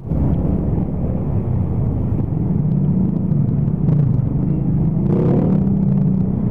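Motor scooter's single-cylinder engine running at low speed in slow, crowded traffic, a steady low hum with a brief higher engine note about five seconds in.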